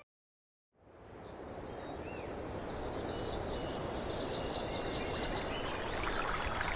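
Birds chirping in quick, high-pitched clusters over a steady rushing background, fading in after about a second of silence.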